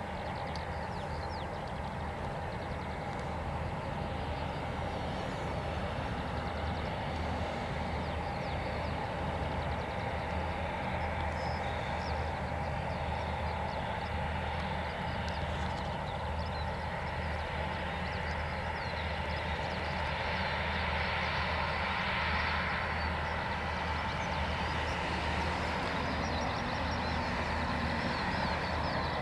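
Airliner engines running, a steady hum and whine with a low rumble that grows slightly louder in the second half.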